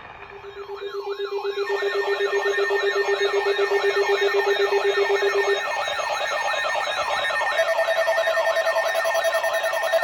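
Electronic siren-like alert tone sweeping rapidly up and down about three times a second, fading in over the first couple of seconds. Beneath it runs a steady lower tone that drops out a little past halfway, and a higher steady tone comes in near the end.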